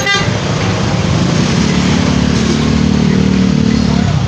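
Busy road traffic with motor scooters running close by: a nearby engine drone comes up about one and a half seconds in and drops away near the end. A short horn toot right at the start.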